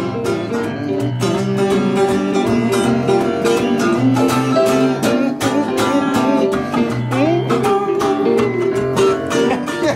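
Blues music led by electric guitar, playing over a low bass line and a steady beat, with a few bent notes about seven seconds in.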